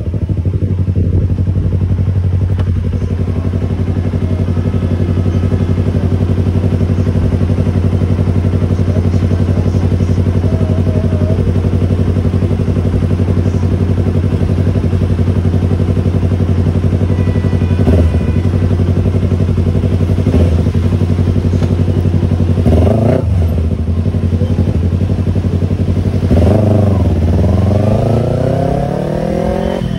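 Yamaha YZF-R25 parallel-twin engine through a Tiger aftermarket exhaust, held at steady revs for most of the time. Near the end the engine note drops and rises again a few times.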